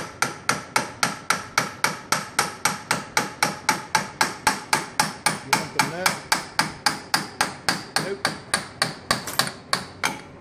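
Hammer giving rapid, steady gentle taps on the end of a John Deere Gator 825i's front axle shaft at the wheel hub, about four to five ringing metal strikes a second, to drive the splined shaft out of the hub. The tapping stops just before the end.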